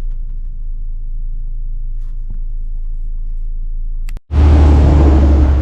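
Steady deep road rumble inside a car while driving. About four seconds in it cuts out briefly and is followed by a louder rushing noise with a strong deep hum.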